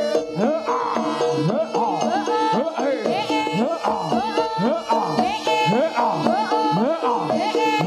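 Jaranan ensemble music: a hand drum plays repeated strokes that bend upward in pitch, under two a second, over steady sustained pitched tones.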